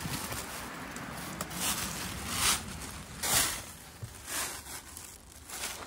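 Rustling and scuffing of people moving about: footsteps on earth and clothing brushing, in a handful of short swishes, the loudest about two and a half and three and a half seconds in.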